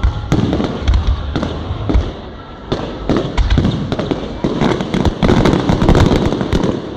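Fireworks display: deep booms from shells bursting overhead, then a dense barrage of sharp crackling bangs that is thickest in the second half.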